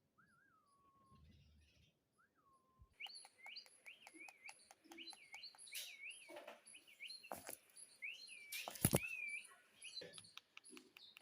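A pet parrot chirping and whistling: a couple of falling whistles, then from about three seconds in a quick run of repeated rising-and-falling chirps, with scattered clicks and a sharp knock near the end.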